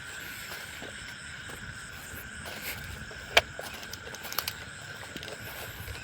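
Night-time outdoor ambience: a steady, high, unbroken insect drone, with scattered short clicks and rustles and one sharp snap about three and a half seconds in.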